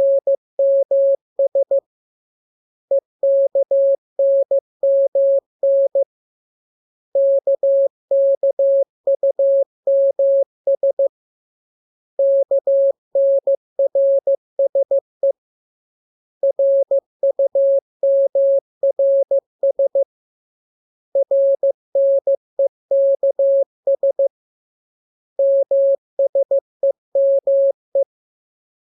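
Morse code practice tone: a single mid-pitched pure tone keyed on and off in dots and dashes, sending the lesson's letters K, M, U, R, E, S and N in groups, each group about three to four seconds long with a pause of about a second between groups.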